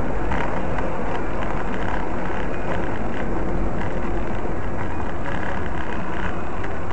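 Steady engine and road noise inside a moving car, with tyres running on a wet road.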